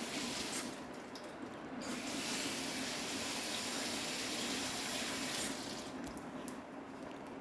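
Water running steadily from a kitchen tap: a short run at the start, then a longer run from about two seconds in that stops a couple of seconds before the end, followed by a few light clicks.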